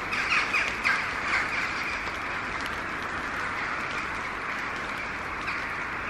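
A large flock of birds calling overhead: a dense chatter of many short calls that is busiest for the first couple of seconds, then settles into a steady chorus.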